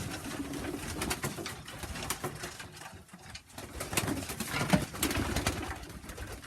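Racing pigeons cooing in a loft, a few low coos over scattered clicks and scuffles.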